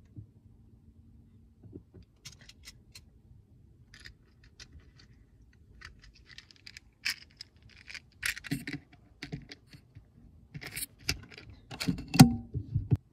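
Pellets being loaded into the Hatsan Flashpup QE air rifle's magazine: a run of small metallic clicks and scrapes, growing busier and louder in the last few seconds.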